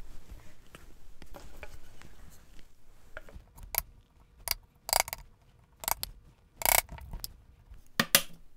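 A narrow chisel worked by hand in the small cross-shaped pockets of a wooden chair back splat, the waste pieces snapping free and popping out. A faint scraping comes first, then a string of sharp snaps and clicks at uneven spacing over the last five seconds.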